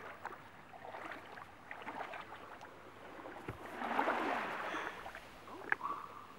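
Shallow seawater lapping and sloshing at the edge of a beach, with one louder surge of water about four seconds in. A short click comes near the end.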